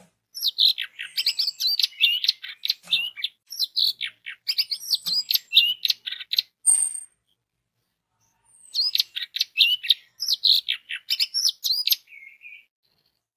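Orange-headed thrush (anis merah) singing in two long bouts of rapid, varied whistled and twittering notes. The first bout lasts about seven seconds, and the second, after a pause of about a second and a half, lasts about three and a half seconds.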